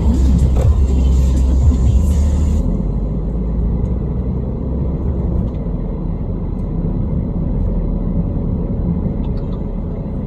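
Background music cuts off abruptly about two and a half seconds in, leaving the steady low rumble of a car driving along a highway.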